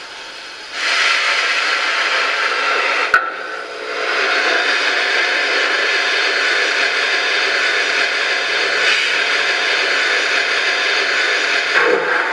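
Zimo sound decoder in an LGB model of the HSB 99 222 Harz steam locomotive, playing a steady hiss of steam from the model's loudspeaker while the locomotive stands still. There is a sharp click about three seconds in, and the hiss drops briefly before it carries on.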